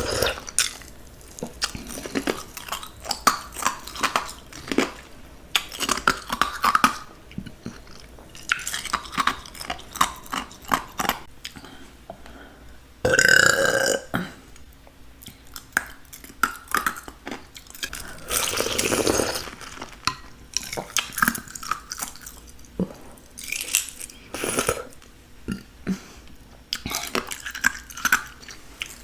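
Close-miked mukbang eating sounds, with wet mouth clicks and chewing all through, and a loud, pitched burp about a second long roughly halfway through. A second long, loud burst follows a few seconds later.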